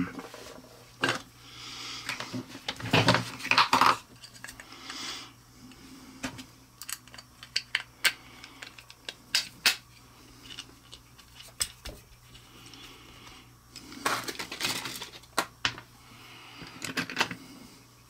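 Small steel bolts and hardware clinking and rattling as they are picked out and handled, with a few stretches of rustling.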